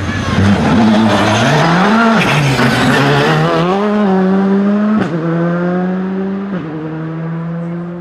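World Rally Car's turbocharged four-cylinder engine revs up and down several times through a corner. A sharp crack comes about five seconds in, then the engine holds a steady, slowly falling note that grows quieter as the car pulls away.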